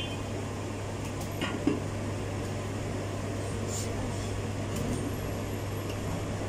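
A steady low mechanical hum, like a fan or running appliance, with two light knife clicks from slicing a vegetable about one and a half seconds in.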